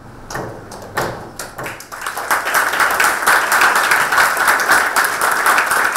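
A wooden gavel knocks a few times on its block, marking the session as closed, then audience applause builds about two seconds in and carries on steadily.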